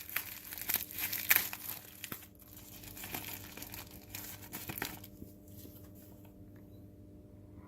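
Plastic packaging crinkling and rustling as it is handled and pulled open to take out a battery pack, for about the first five seconds, after which it stops.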